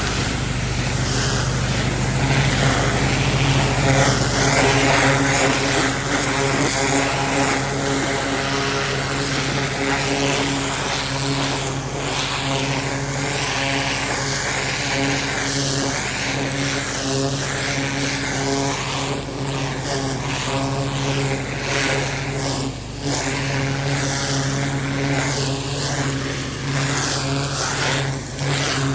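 Pressure washer running: a steady motor hum under the hiss of its high-pressure water jet, the hiss changing in tone as the jet is swept over gravel and soil.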